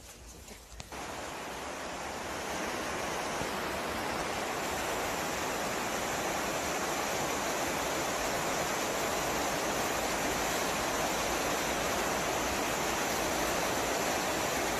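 A steady rushing noise, like running water or wind. It starts abruptly about a second in, swells over the next couple of seconds, then holds even.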